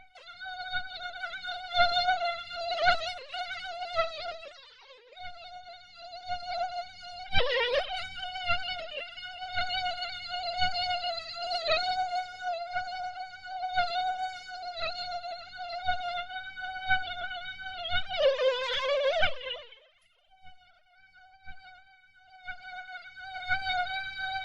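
Mosquito whining in flight: a steady, high buzz that swells and fades as it flies close and away. The whine swoops briefly down in pitch a few times, most plainly about 7 and 18 seconds in, and goes faint for a couple of seconds near the end before it returns.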